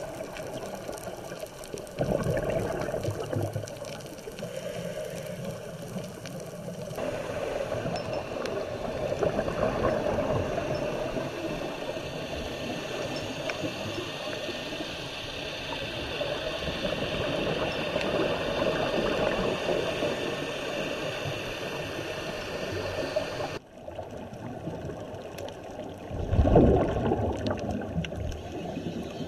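Scuba diving heard underwater: a diver's regulator breathing, with the gurgle and rush of exhaled bubbles, louder about two seconds in and again near the end.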